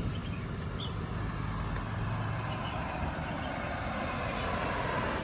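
Steady low rumble and hiss of a running motor vehicle, with a few faint high chirps over it; it cuts off abruptly at the very end.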